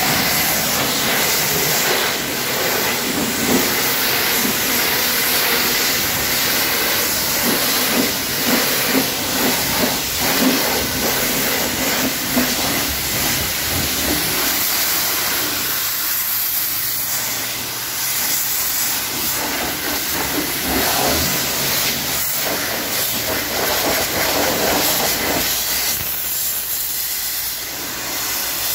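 Water spraying from a hose in a steady hiss as it rinses a car's ceramic-coated paint, easing off briefly a couple of times.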